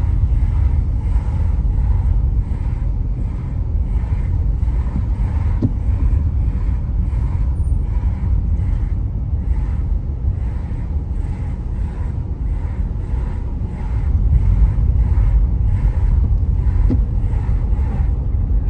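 Steady low road and engine rumble inside a moving car, with a faint pulsing about twice a second.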